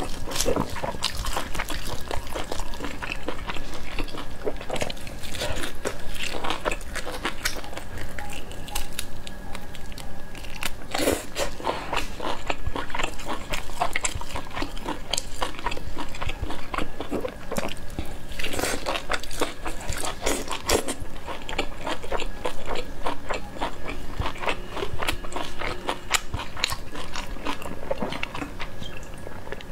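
Close-miked eating of spicy braised beef ribs: biting, chewing and crunching, with the meat pulled apart by gloved hands. Near the end, a drink is taken from a bottle.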